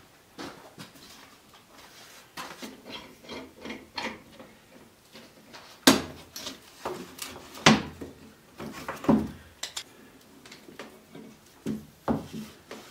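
Irregular knocks and clatter of metal bar clamps and wooden boards being handled and set on a workbench, with some rubbing between. The loudest knocks come about six and eight seconds in.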